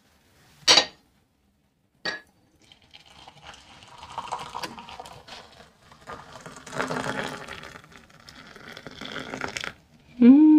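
Two light clinks of a cup or pot, then hot coffee poured from the pot into a cup, the stream running for about seven seconds with the pitch of the filling changing as it goes.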